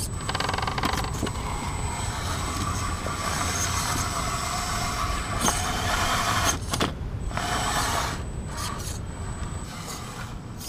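Radio-controlled crawler truck's 19-turn electric motor and gear reduction unit whining as it climbs over rocks, rising and falling with the throttle. A couple of sharp knocks sound a little past the middle as the truck works over the stones.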